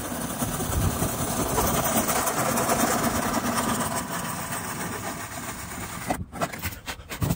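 A vehicle passing, its rushing noise swelling and then slowly fading over about six seconds. Near the end, a few sharp snaps as a plastic part is cut with hand cutters.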